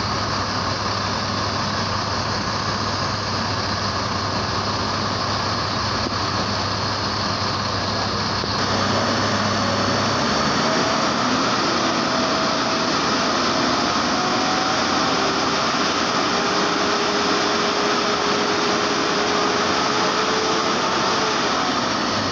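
Mercedes-Benz OH1626 bus's rear-mounted diesel engine idling steadily. A low steady hum in the sound drops out about ten seconds in, and a faint, slowly rising whine runs through the second half.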